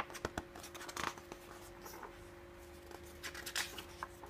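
Paper pages of a model-kit booklet being turned and handled: scattered soft rustles and light taps.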